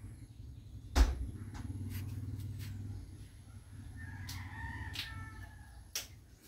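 A rooster crowing once, a drawn-out call of over a second starting about four seconds in. A sharp knock about a second in is the loudest sound, with a smaller click near the end.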